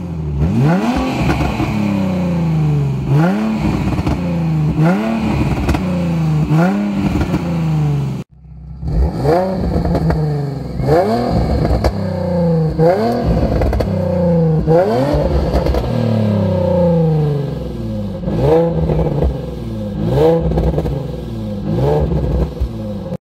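Nissan 350Z's 3.5-litre V6 free-revving through an aftermarket stainless-steel valved exhaust. The throttle is blipped over and over, each rev rising and falling back, about one every two seconds. The sound cuts out briefly about eight seconds in.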